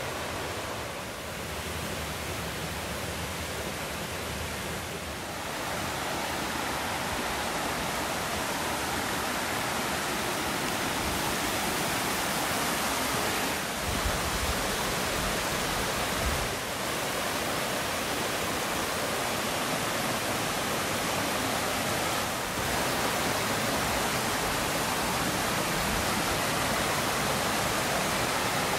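Rushing water of a mountain creek tumbling over rocks, a steady noise that grows louder about five seconds in. Two brief low thumps come about halfway through.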